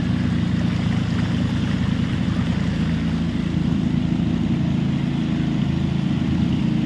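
A small fishing boat's petrol engine running steadily under way.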